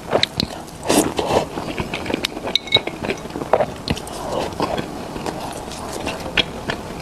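A person biting into and chewing food, with a row of sharp mouth clicks and a bigger bite about a second in.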